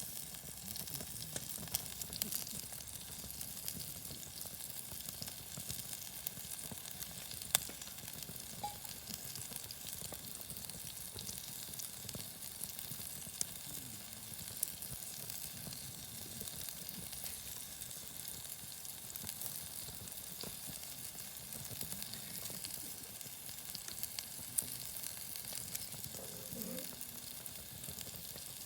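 Lamb chops sizzling steadily on a small iron griddle over a campfire, with occasional sharp pops.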